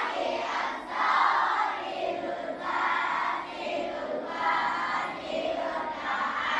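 A large group of schoolchildren chanting together in unison, in short phrases of about a second with brief breaks between them.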